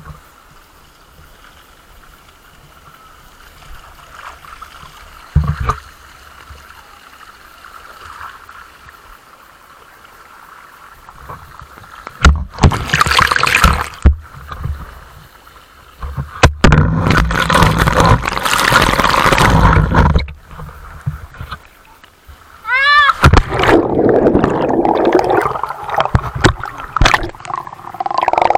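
Water rushing and splashing over and around a camera riding down a water slide into a pool. After a stretch of low background, loud bursts of rushing water come and go, and near the end the sound turns muffled and gurgling as the camera dips under the surface.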